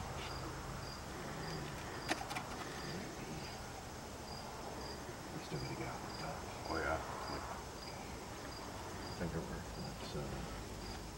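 A cricket chirping steadily, a short high chirp repeated about twice a second. A single sharp click comes about two seconds in.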